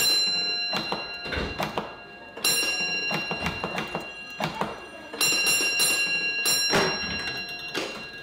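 Signal box bell ringing in three long rings of about two seconds each, with metallic clicks and clunks from the electric token instrument as its brass handle is worked to release the single-line token.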